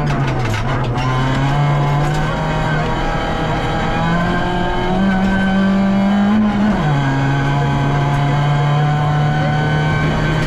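VW Polo rally car's engine heard from inside the cabin at speed on a stage. The engine note holds fairly level, climbs in pitch from about five seconds in, then drops sharply just before seven seconds and settles again.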